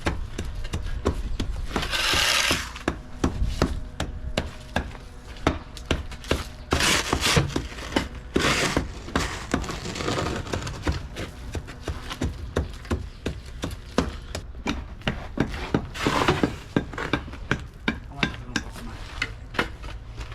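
Hand tools working blacktop: shovels and rakes scraping and knocking, with many short sharp knocks and a few longer scrapes, over a steady low rumble.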